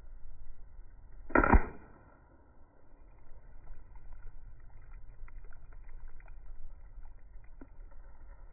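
A single shot from a Crosman 760 pump air rifle about a second and a half in: a short, loud report. Faint small clicks of handling follow.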